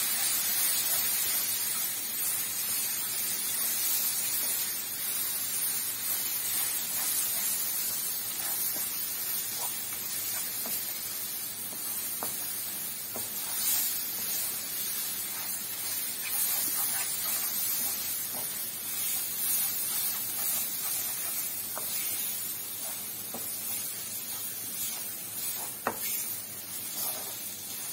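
Tomato paste and flour frying in butter in a non-stick pan, sizzling steadily while a wooden spoon stirs it, with a few light clicks from the spoon against the pan.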